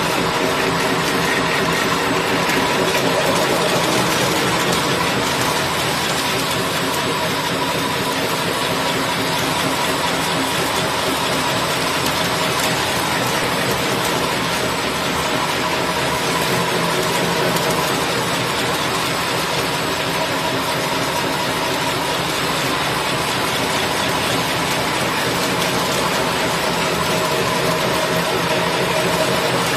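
Single paper straw packing machine running steadily, its rollers feeding the wrapping paper strip: a loud, even mechanical whir with a fast, regular beat and a few steady tones.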